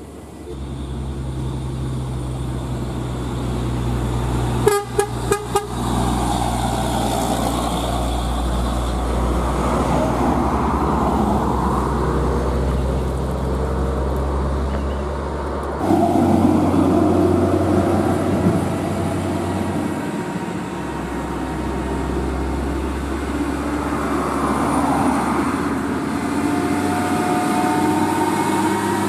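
Heavy diesel trucks labouring uphill, engines running hard under load, with several short horn toots in quick succession about five seconds in. Near the end a UD Quester's diesel engine roars with its note rising as it pulls.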